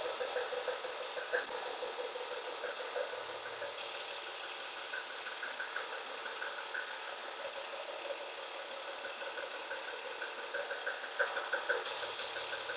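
BMW E36's M52 straight-six engine running with a rapid, steady knocking, the knock the owner is recording; a few sharper knocks stand out near the end.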